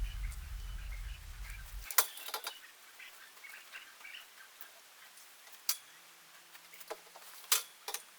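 Scattered sharp clicks and knocks of canopy tent frame parts being handled, about five in all, the loudest around two seconds in and near the end. A low rumble cuts off suddenly about two seconds in.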